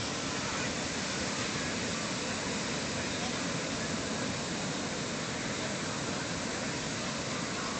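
Steady wash of breaking ocean surf, with faint voices of people on the beach.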